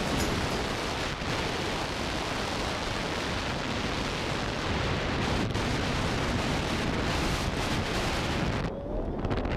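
Steady wind rushing over the camera microphone under a tandem parachute canopy during the descent. The high hiss thins out near the end as the pair nears the ground.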